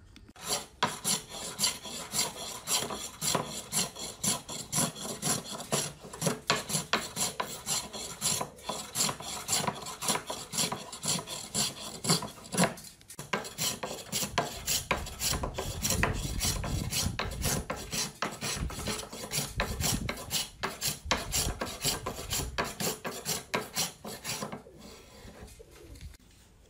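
Hand plane shaving a wooden board in quick repeated strokes, about two a second, with a short break about halfway; the strokes stop near the end.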